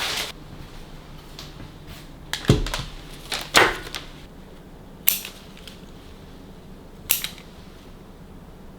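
A few sharp clicks and knocks of small objects being handled and set down: a pair of heavier knocks, then two lighter, crisper ticks, over a low steady hum.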